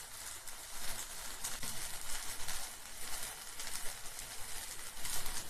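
Onion-tomato masala sizzling in a non-stick pan: a low, steady crackling hiss.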